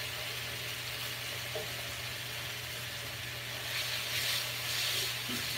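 Chicken breasts sizzling and frying in a hot copper-coloured skillet as they are turned with a slotted spatula. The sizzle swells twice near the end as pieces are flipped back down onto the pan.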